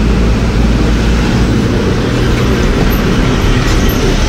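Steady engine hum with road and wind noise inside the cab of a moving goods truck cruising on the highway.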